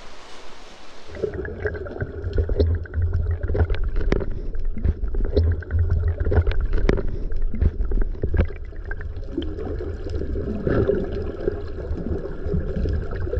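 About a second of steady hiss, then underwater sound heard through a camera's waterproof housing: a muffled, low rumble and gurgling with many scattered sharp clicks.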